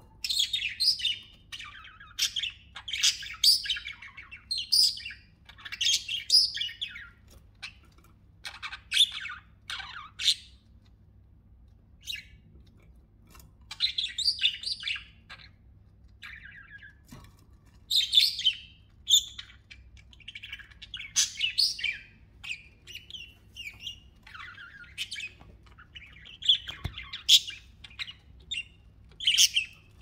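Pet budgerigars chirping and warbling in fast bursts of high chatter, separated by short pauses of a second or two.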